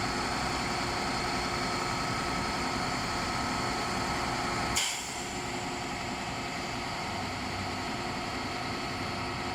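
Concrete truck's heavy diesel engine running steadily, with one short, sharp hiss of air about five seconds in, after which it runs a little quieter.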